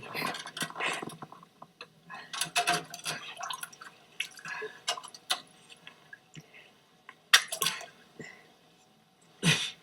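Water and ice splashing and sloshing in a partly frozen septic tank, in irregular bursts with quiet gaps between them, as the ice is broken up.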